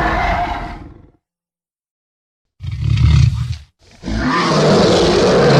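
Film dinosaur roar sound effects played one after another: a roar trailing off about a second in, then dead silence, a short deep roar, and a longer roar beginning near the end.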